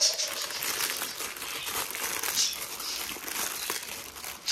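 Plastic mailing bag and silvery foil-like wrapping crinkling steadily as they are pulled open and handled.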